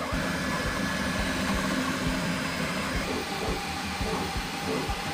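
Bambu Lab X1-Carbon CoreXY 3D printer running a fast print: a steady mechanical hum and low knocking of the moving print head and frame, with a motor whine that drops to a lower pitch about three seconds in.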